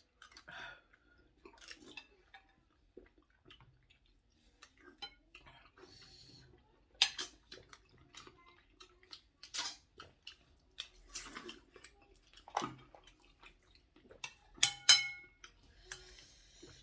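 Eating pepper soup: irregular clicks and clinks of cutlery against a bowl mixed with chewing, with a few louder knocks and a couple of short hissing sounds.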